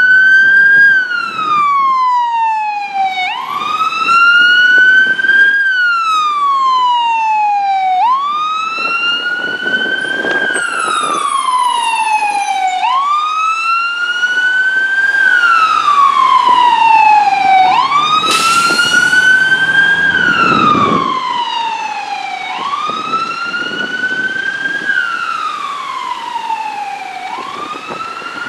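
Fire apparatus siren on a slow wail, a 1997 Pierce Quantum quint's, each cycle climbing quickly, then sliding slowly down, about one every five seconds. The sound swells as the truck passes and fades as it drives away, with a brief hiss about eighteen seconds in.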